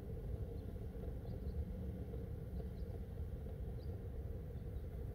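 Steady low background rumble with a few faint, brief high chirps scattered through it; no distinct event stands out.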